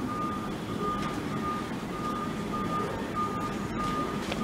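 Warning beeper on airport ground equipment, like a vehicle's reversing alarm, beeping on one pitch about every half second over a steady low rumble.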